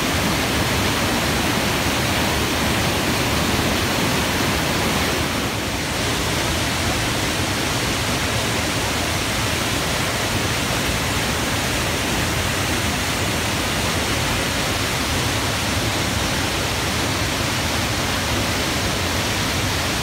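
Ryuzu Falls, a waterfall cascading over rocks into a pool, rushing loudly and steadily.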